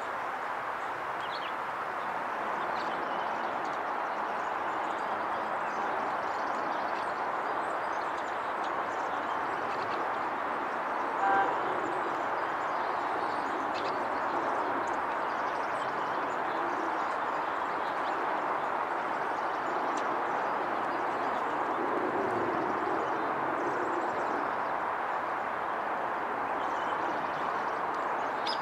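Steady outdoor background noise with one short pitched toot, like a distant horn, about eleven seconds in. Faint high bird chirps come through now and then.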